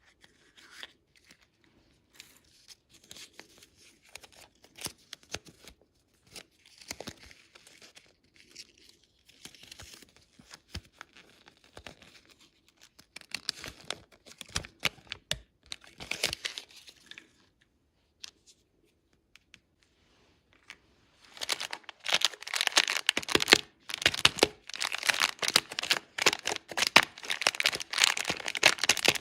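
Candy wrappers crinkling and tearing in a run of close crackles, sparse and soft at first with a short pause, then much louder and denser for the last several seconds.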